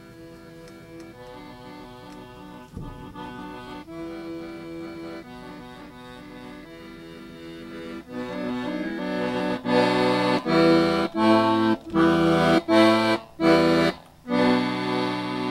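Instrumental music of held chords, quiet at first and swelling louder about eight seconds in. A run of short, loud chord stabs with gaps between them follows, then one long held chord.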